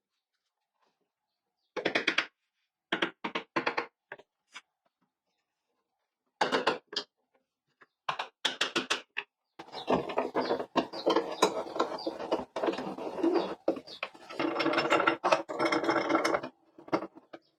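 Hand tool working a hard mahogany-type board: a few short, separate scraping strokes, then several seconds of rapid, almost continuous strokes near the end.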